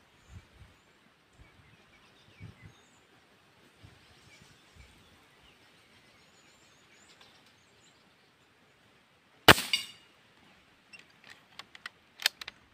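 Foot-pump air rifle firing once, about three-quarters of the way in: a single sharp crack with a short ringing tail. A few metallic clicks follow near the end as the rifle's action is worked. Faint birdsong throughout.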